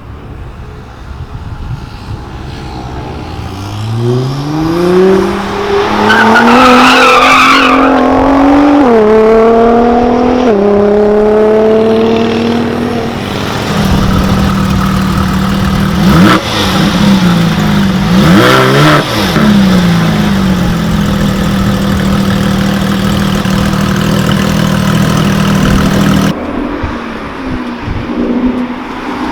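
A performance car's engine accelerating hard, its pitch climbing and dropping at two gear changes, then holding a long steady note, with brief passing sweeps from other engines over it; the sound changes abruptly near the end.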